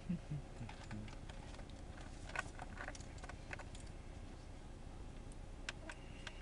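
Light clicks and taps of hands handling the plastic underside of a laptop, in a small cluster midway and a couple more near the end, with a few soft knocks at the start.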